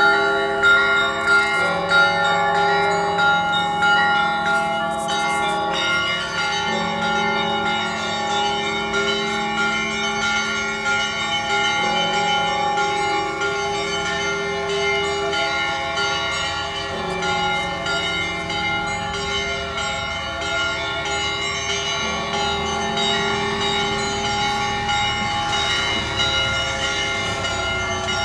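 Cathedral bells ringing together: several bells of different pitches struck again and again, their tones overlapping into a continuous peal. The strikes stand out most sharply in the first few seconds.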